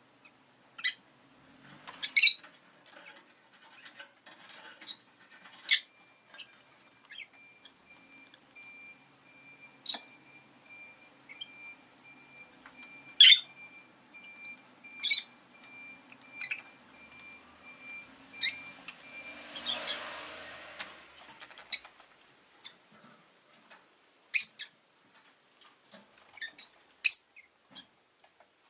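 Rosy-faced lovebirds giving short, sharp single chirps every few seconds. A faint steady high tone runs through the middle stretch, and a brief swell of noise rises and fades about twenty seconds in.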